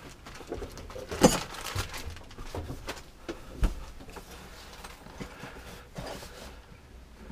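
Scattered light clicks and knocks from handling a plastic RV toilet floor flange and its rubber gasket while fitting them, with a sharper click about a second in and another a little past three seconds.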